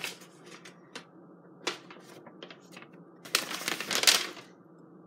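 Paper sheet of an invoice being unfolded and handled, rustling in short bursts with light clicks and a louder rustle about two-thirds of the way through.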